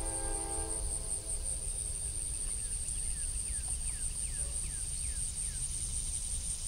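Steady high-pitched insect buzz over a low rumble. A pitched, chord-like tone fades out about a second in, and a bird gives a run of about eight quick falling notes in the middle.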